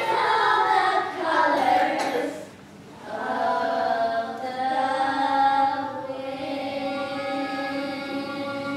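Music with voices singing, the melody moving for the first couple of seconds, then long steady held notes from about three seconds in.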